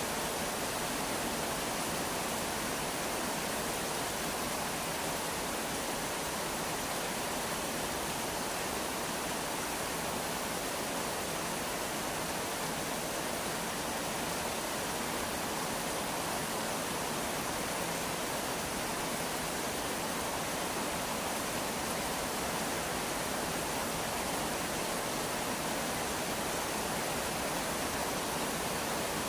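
Steady rain falling: an even, unbroken hiss with no distinct drops or pauses.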